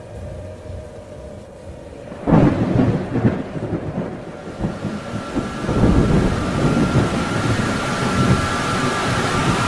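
Thunder: a low rumble, then a sudden loud clap about two seconds in that rolls on. From about six seconds a heavier rumble with a steady rain hiss builds up.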